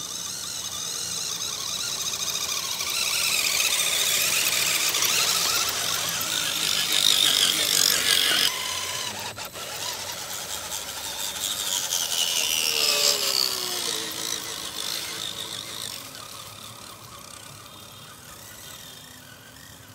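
Electric motor and gear drive of a radio-controlled scale crawler truck whining, the pitch rising and falling with the throttle as it crawls. It is loudest around the middle and fades toward the end as the truck moves away.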